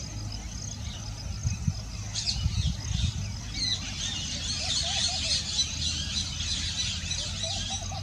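Small wild birds chirping and twittering in a dense chorus of short high notes, growing busier about two seconds in, over a low rumble.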